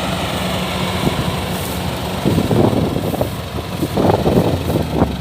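Diesel engine of a Kubota DC-105X combine harvester running steadily, with irregular louder sounds over it from about two seconds in.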